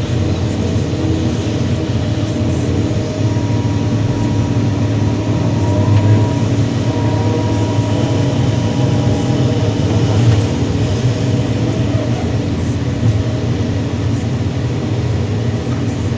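Kobelco SK330-10 hydraulic excavator working: its diesel engine runs steadily under load with a faint hydraulic whine, swelling louder twice as the machine digs and swings.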